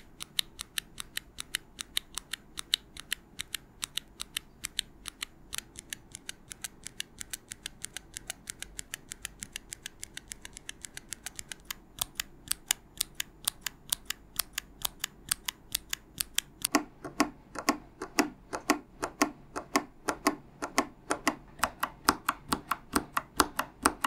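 Mechanical keyboard switches on a switch tester, pressed over and over in a quick, even series of about four clicks a second. This is a blind test of blue, brown and red switches, one switch after another. About seventeen seconds in, the clicks turn louder and fuller, as a different switch takes over.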